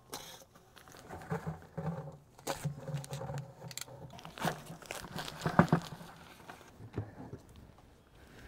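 Paper sack of dry thinset mortar crinkling and rustling as it is opened and emptied into a plastic bucket, with irregular scrapes and knocks, the loudest about five and a half seconds in.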